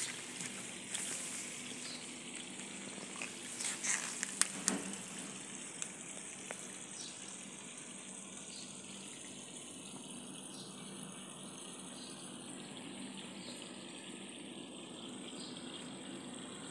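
Steady outdoor background noise: a rushing hiss with a low hum and a thin, high, steady whine. A few sharp clicks and rustles come around four to five seconds in.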